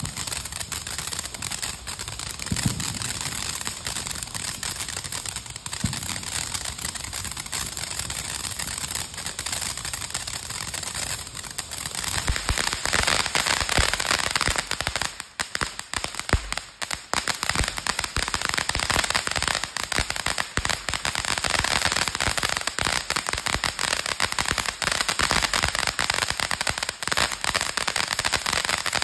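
Ground fountain firework spraying sparks: a steady hiss with dense crackling throughout, growing louder about twelve seconds in.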